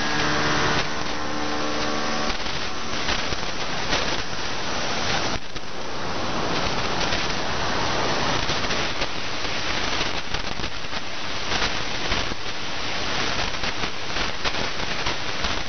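Shortwave radio static received on 9035 kHz: a loud, steady hiss with fluttering fades. For about the first two seconds a cluster of steady tones sounds over it, then only the noise remains.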